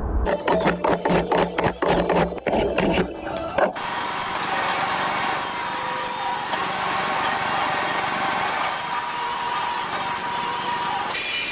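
Quick, even strokes of a metal hand plane on a board edge for the first three or four seconds. Then a table saw runs and rips a wooden board into thin strips, a steady loud cutting noise with a faint whine.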